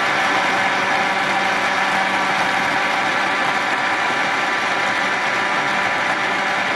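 Countertop blender running steadily at full speed, blending lemon, mint leaves, sugar and water into a smoothie in its plastic jar: a motor whine over the churn of the liquid.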